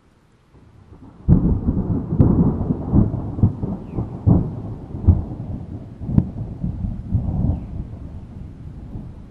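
Thunder: a low rumble builds, then just over a second in breaks into a loud peal with a run of sharp cracks, which fades into a long, slowly dying rumble.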